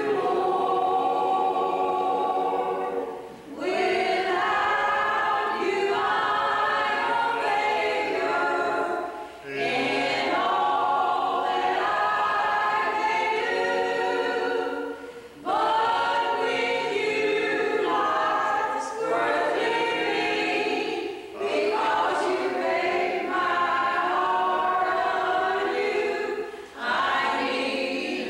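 A small group of voices, one man and six women, singing together a cappella. They sing in phrases of about six seconds with short breaks for breath between them.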